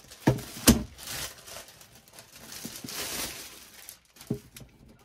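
Clear plastic bag rustling and crinkling as a cardboard laptop box is pulled out of it. Two sharp knocks come near the start and another about four seconds in as the box is handled on the desk.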